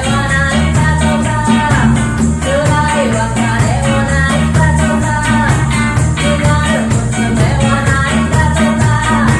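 Live band playing a reggae-style song: a heavy bass line and steady beat under a melody line.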